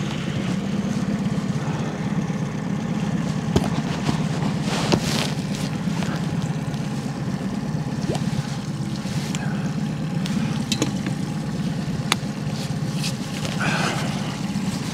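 Small outboard motor running steadily at trolling speed, a constant low hum. A few short clicks and knocks sound over it now and then.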